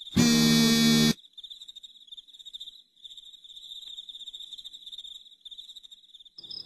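An alarm clock buzzes loudly for about a second, then crickets chirp in a steady high pulsing trill. Near the end a faint hiss comes in as a radio is switched on.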